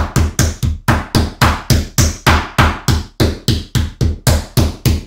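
Metal meat mallet pounding a raw pork chop flat on a wooden cutting board, flattening and tenderizing it for schnitzel: steady, even thuds at about four a second.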